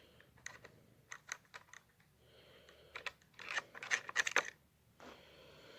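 Light clicks and small clatters of rifle parts being handled as the loosened action of a Savage Axis rifle is lifted out of its synthetic stock, with a busier run of knocks a little past the middle.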